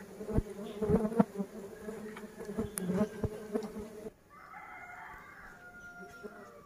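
Stingless bees (cherutheneecha) buzzing in a steady hum around their opened, disturbed nest, with scattered small clicks. About four seconds in, the hum drops away to a quieter, fainter buzz.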